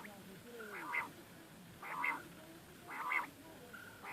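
A bird calling four times, a short harsh call about once a second.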